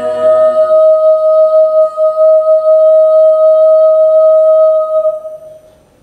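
A cappella choir's final chord cuts off under a second in, leaving a solo soprano voice holding one long high note that fades away near the end.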